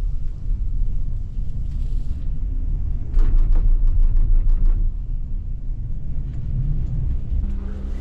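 Low rumble of a moving vehicle, with a run of loud rhythmic thumps, about four a second, from about three seconds in to nearly five seconds.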